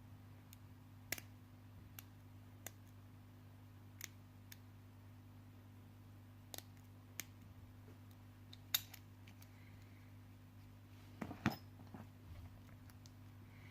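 Lock picks working a small Abus padlock: scattered small sharp clicks and ticks at irregular intervals, with a short louder cluster about eleven seconds in, over a steady low hum.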